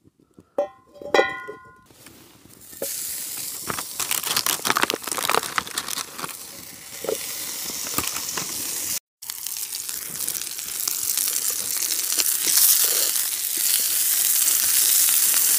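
A couple of short ringing clinks, then Lorne sausages sizzling and crackling in a hot pan, the sizzle growing louder toward the end.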